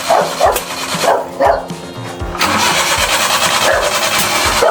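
Suzuki mini truck engine running, freshly reconnected throttle cable and hoses, with dogs barking several times in the first couple of seconds.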